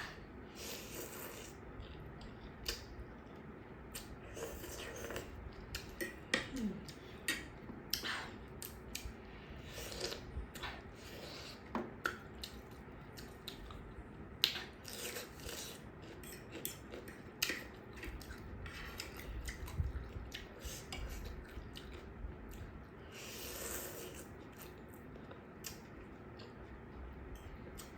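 A person eating spicy curry noodles close to the microphone: chewing and a few short slurps, with scattered small clicks and clinks of a utensil against the bowl.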